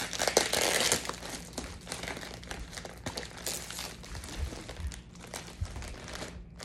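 Orange plastic poly mailer bag crinkling as it is gripped and pulled at. Loudest in the first second, then lighter, intermittent rustling with a few soft thumps.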